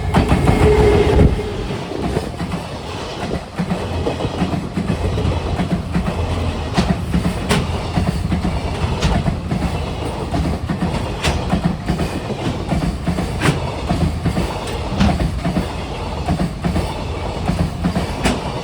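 A long container freight train, hauled by an EF210 electric locomotive, rolling past with a steady rumble. Its wheels clack sharply over the rail joints every second or two. The sound is loudest in the first second or so.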